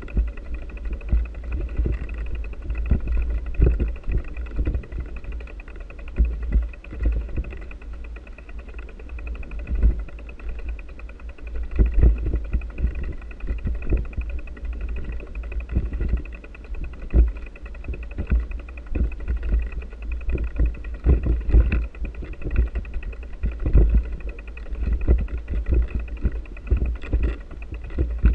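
Wind buffeting and riding jolts on a bike-mounted camera's microphone while cycling over a sandy track: a steady low rumble broken by frequent irregular thumps, with a faint steady whine above it.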